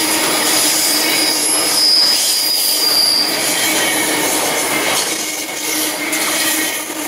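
Long freight train wagons rolling past at close range, a steady rumble and rattle of wheels on rail. A high wheel squeal rises about one and a half seconds in and fades a couple of seconds later.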